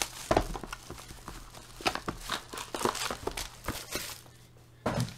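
Foil wrappers of trading card packs crinkling as they are handled, in a run of short crackles, with a soft thump near the end.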